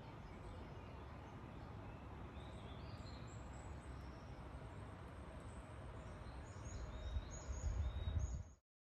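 Woodland birds chirping and calling in short high notes over a steady low rumble, which grows stronger near the end before the sound cuts off suddenly.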